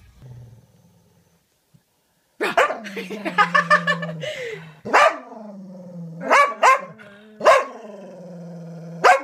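A small spaniel growling steadily and breaking into about five sharp barks, starting about two and a half seconds in.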